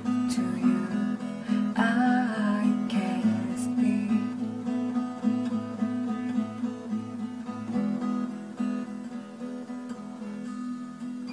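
Song music led by strummed acoustic guitar, with a brief melodic line about two seconds in. The music gradually fades out over the last few seconds.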